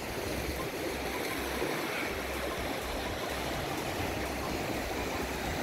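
Sea surf: waves breaking and washing in a steady rush, with uneven low rumble from wind on the microphone.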